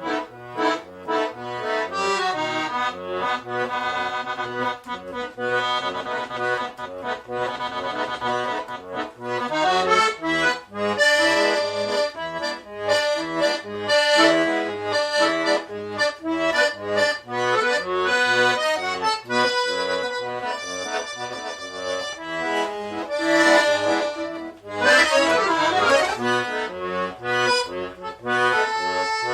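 Accordion (gaita) playing a lively tune: a melody in chords over a steady, repeating pattern of bass notes, with a quick run of notes a few seconds before the end.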